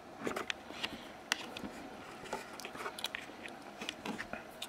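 Irregular small clicks, scratches and crackles of metal test probes being pressed and scraped against the solder tags of a radio's multi-section electrolytic capacitor can to make contact.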